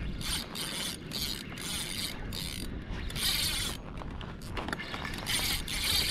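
Spinning fishing reel being cranked quickly, a rhythmic mechanical whirring of about two handle turns a second, as line is wound in to come tight on a fish that has hit the live bait.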